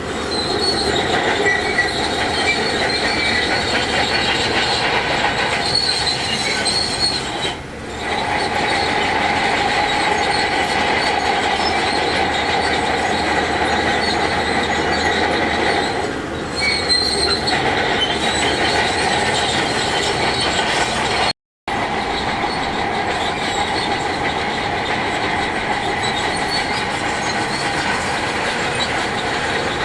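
Crawler bulldozer's steel tracks squealing and clanking steadily as the machine runs and pushes rock. The sound cuts out completely for a moment about two-thirds of the way through.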